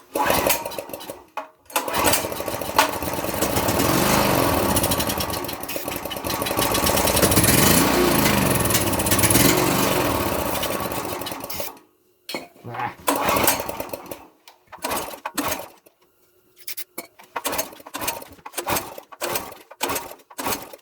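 Small portable generator engine firing up and running for about ten seconds, its revs rising and falling unevenly, then cutting out suddenly. After that it gives only short, irregular bursts, the unsteady running of a flood-damaged engine that won't yet keep going.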